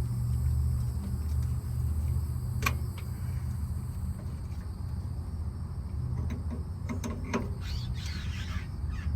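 Steady low rumble, with a few sharp clicks of ignition parts being handled on a VW Beetle's engine.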